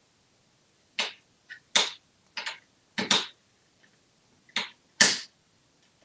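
Hard plastic toy tools clacking against a toy toolbox and the countertop as an African grey parrot handles them with its beak: about six sharp knocks at uneven intervals.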